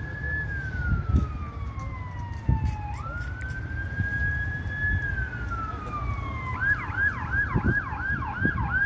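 Emergency-vehicle siren sounding in a slow wail, climbing, holding high and sliding down about every three seconds, then about six and a half seconds in switching to a fast yelp of about two to three sweeps a second. A steady low rumble and a few thumps lie underneath.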